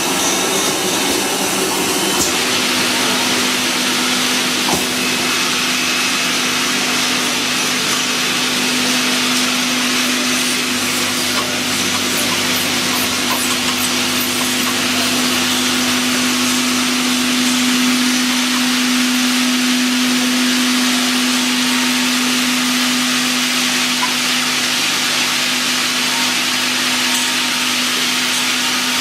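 An automatic bottle washing, filling and capping line running: a steady hiss with a steady motor hum that sets in about two seconds in.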